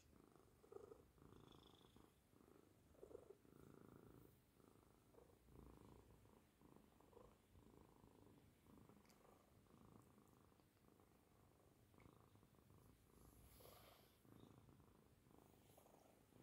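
A tabby cat purring softly and steadily while being scratched under the chin and on the cheeks.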